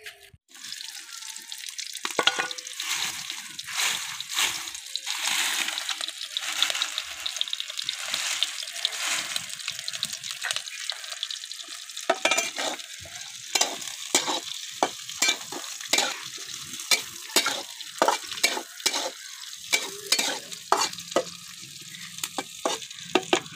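Sliced onions sizzling in hot oil in an iron kadhai. From about halfway through, a flat steel spatula scrapes and clacks against the pan in quick strokes as the onions are stirred.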